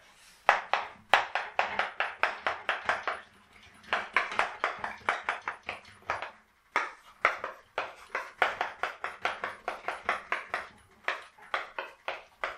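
Chalk writing on a blackboard: quick taps and scratches of the chalk, about five or six strokes a second, in runs with short pauses about three and six seconds in.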